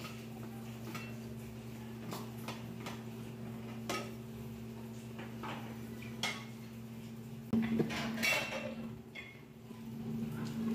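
Aluminium pressure cooker being opened: scattered metal clicks and knocks as the lid is worked loose and lifted off, with a louder clatter of metal about three quarters of the way through, over a steady low hum.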